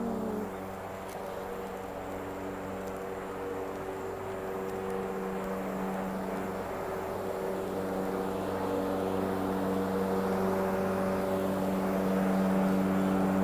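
A steady, low-pitched engine hum, growing a little louder toward the end.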